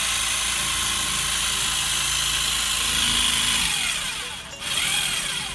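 Electric jigsaw running as it cuts through a pumpkin, a steady buzz that drops off about four seconds in, then one short burst near the end.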